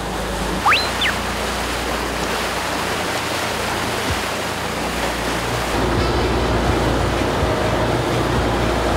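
Rushing water and wind noise from a boat running under way, its wake churning. A short rising whistle-like tone sounds about a second in.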